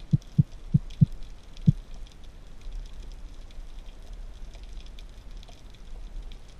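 Underwater sound: five dull low thumps in quick succession in the first two seconds, then a steady faint crackling hiss.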